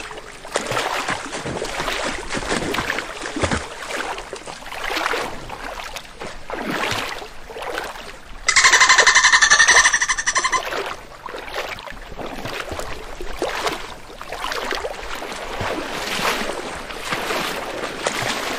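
Water splashing and surging as a killer whale thrashes and slides across a pool's shallow ledge. About halfway through comes a loud, buzzy pulsed call lasting about two seconds.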